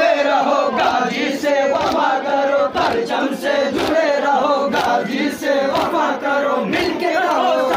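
A crowd of men chanting and shouting together, many voices overlapping, with a few sharp strikes now and then.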